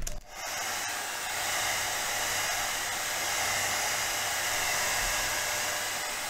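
Hot-air blower coming on just after the start and then running steadily with an even rushing hiss, heating the adhesive that holds the iPad's glass digitizer.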